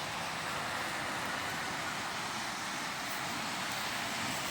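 Steady road traffic noise: a continuous even rush of vehicles passing on the roads around a busy roundabout.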